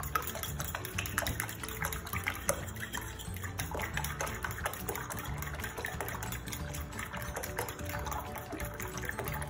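A fork beating raw eggs in a ceramic bowl: quick, continuous wet sloshing and splashing, with the tines clicking against the bowl.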